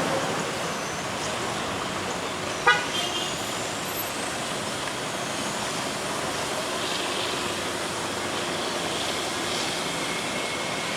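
Scania R580 V8 truck pulling a heavy load uphill: steady engine and road noise. One brief, loud toot about three seconds in.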